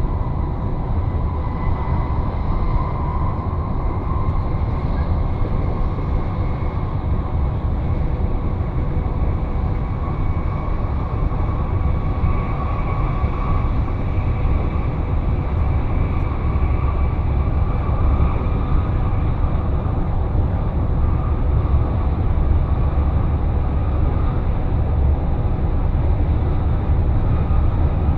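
PKP Intercity ED250 Pendolino electric train running steadily along the line: a continuous low rumble of wheels on track, with a faint high whine that drifts slowly in pitch.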